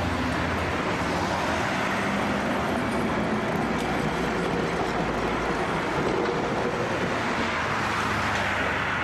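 Heritage electric tram running past on street track, a steady rumble of wheels on the rails and a low motor hum. Near the end a car drives past close by.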